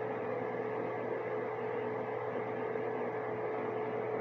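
Dehumidifiers running: a steady hum with fan noise and one constant tone.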